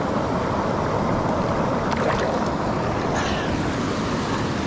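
Steady rushing of a mountain stream's flowing water, with a couple of faint brief sounds about two and three seconds in.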